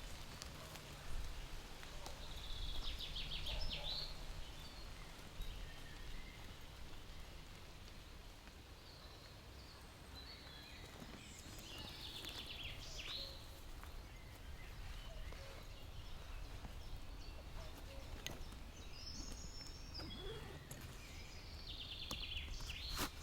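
Woodland ambience: short, high bird trills a few times, spaced several seconds apart, over a low steady rumble.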